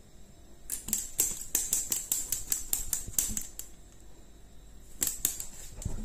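Water being sprayed or sprinkled in quick short spurts, about five or six a second for around three seconds, then a few more near the end.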